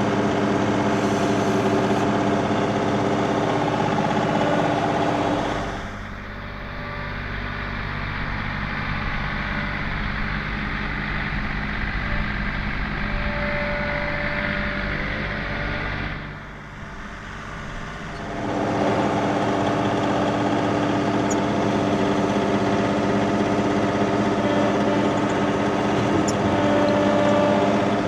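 Compact tractor engine running steadily; about six seconds in it drops to a quieter, lower note and comes back up to its earlier level about twelve seconds later.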